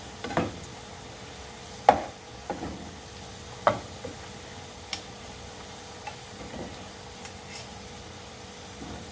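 Potato fries frying in hot oil with a steady sizzle, while a utensil stirs and separates them so they don't stick together. It knocks against the pan about eight times at uneven intervals, loudest about two seconds in.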